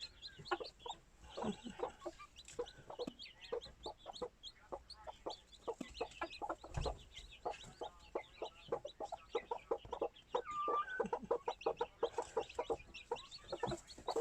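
Serama bantam hens clucking in quick, continuous low clucks while brooding chicks, with the chicks' high thin peeps mixed in.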